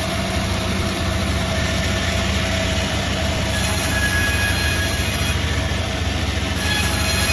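Multi-blade sawmill running with a steady low hum and a constant mid-pitched tone. A higher hiss comes in twice, around the middle and again near the end.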